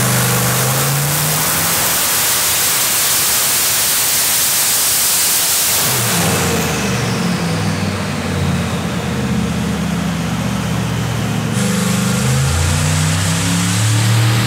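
Twin-turbo Ford Windsor stroker V8 running hard under load on a hub dyno during a power pull. A loud, steady rush fills the first six seconds or so. After that the engine's note climbs and falls back several times as the transmission shifts through the gears.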